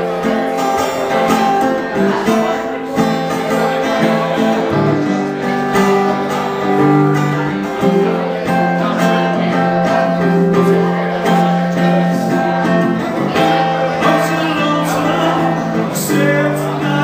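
Acoustic guitar strummed live, a steady run of chords.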